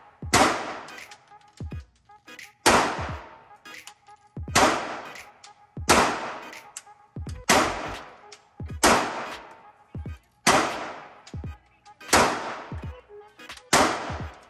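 Glock 19X 9mm pistol firing nine single shots in an indoor range, spaced roughly one and a half to two seconds apart, each crack followed by a short echoing tail. Fainter sharp knocks come between the shots.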